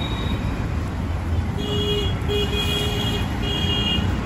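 A vehicle horn honks three times in short, steady-pitched toots, starting about a second and a half in, over a steady low rumble of street noise.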